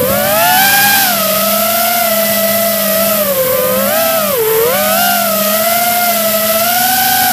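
Motors and propellers of radio-controlled aircraft in flight, heard from a camera on a chase aircraft: a steady low hum under a higher propeller whine that rises and falls with the throttle, dipping sharply about four and a half seconds in, with a hiss of wind.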